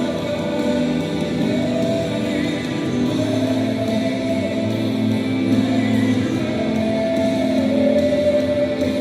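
Gospel music: a choir singing long held notes over an instrumental backing.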